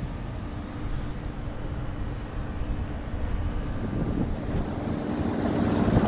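2006 Heil heat pump outdoor unit running in heat mode, a steady hum of compressor and condenser fan with a held low tone, its coil frosted over and fan grille iced up. It grows louder near the end.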